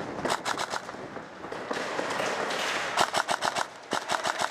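Airsoft gun firing in rapid full-auto bursts of about a dozen shots a second: a short burst just after the start, a longer burst of about a second around three seconds in, and another starting at the end.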